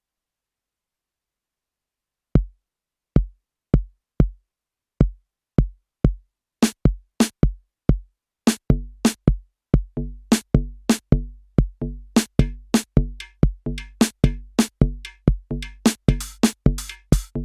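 Roland TR-6S drum machine beat loop fed through an analogue distortion and overdrive pedal. Deep kick drum hits start about two seconds in, then more drum sounds join and the pattern grows steadily busier.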